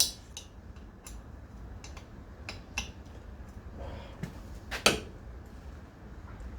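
Scattered light metallic clicks and clinks of hand tools being picked up and tried, Allen keys sorted for the right size, with one louder clack about five seconds in, over a low steady hum.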